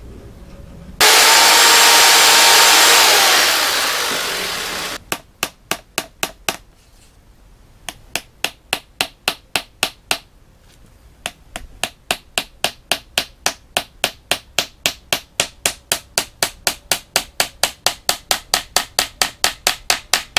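A few seconds of loud rushing noise, then a hammer driving nails into thin softwood frame strips: a long run of sharp, even strikes about three a second, broken by two short pauses.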